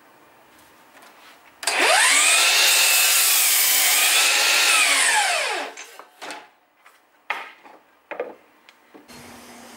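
DeWalt FlexVolt cordless sliding miter saw starting up and cutting through a 2x6 pine board: its motor whine rises sharply, dips slightly in the middle of the cut and falls away as the blade spins down about four seconds later. A few knocks follow as the board is shifted on the saw table.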